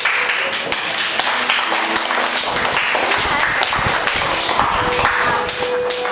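Audience applauding, many hands clapping; it breaks out suddenly and dies away near the end.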